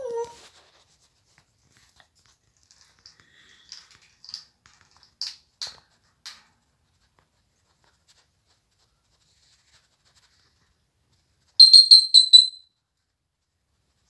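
African grey parrot calling. It gives a short gliding call at the start, then soft clicks and chirps. About twelve seconds in comes a loud, rapid run of about five high whistled notes that fall slightly in pitch.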